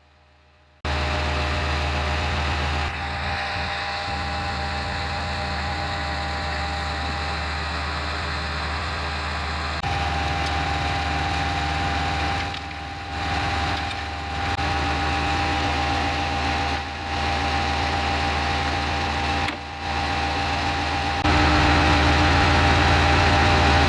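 Engine running steadily, with a strong low rumble and a steady whine. Its level and tone change suddenly several times.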